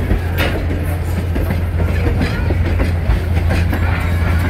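Wooden railroad passenger coaches and a baggage car rolling past, their wheels clicking now and then over the rail joints above a steady low rumble.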